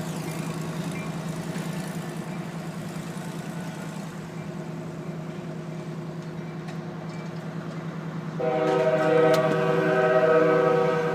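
A steady low hum from an aerial ladder truck's engine and hydraulics as the ladder extends. About eight seconds in, a loud sustained horn-like chord of several steady tones comes in and lasts roughly three seconds.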